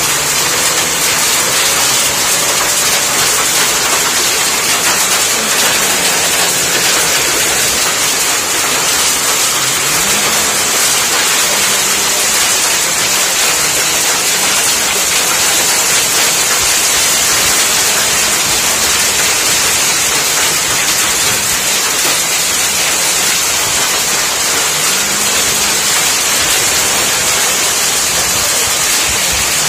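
Hailstorm: heavy rain mixed with hail falling steadily on the ground, an even, unbroken hiss.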